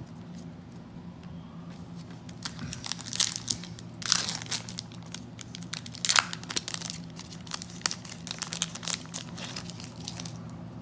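Foil wrapper of a Topps Stadium Club trading card pack being torn open and crinkled by hand: a run of crackling rips and rustles starting about two seconds in, loudest around the middle.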